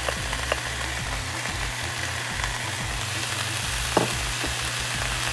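Ground beef and sausage sizzling steadily in a skillet as sliced mushrooms go in, with small crackles and one sharper click about four seconds in as the spatula meets the pan.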